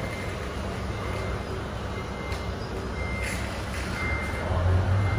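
Reversing beeper of a radio-controlled construction model beeping repeatedly, about once a second, over a low rumble that grows louder near the end.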